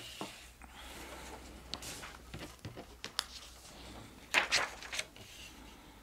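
Sheets of paper rustling and sliding on a table as a drawn-on sheet is moved away and a blank sheet is laid down. There are a few light taps, and the loudest rustle comes about four and a half seconds in.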